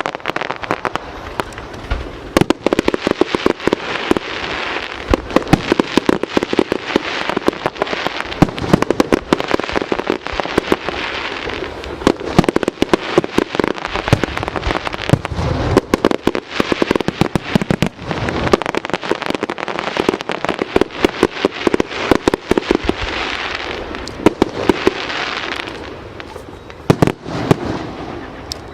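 Aerial fireworks display going off in rapid succession: continuous sharp bangs and crackling, many bursts a second.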